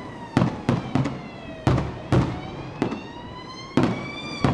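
Fireworks bursting, about eight sharp bangs at uneven intervals, over a police car siren wailing slowly down and back up in pitch.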